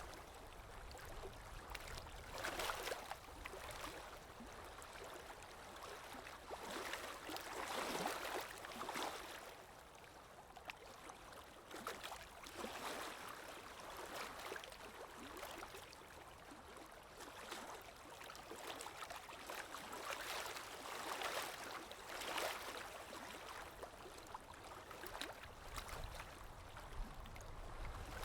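Water lapping with wind: a steady wash that swells and eases irregularly every few seconds.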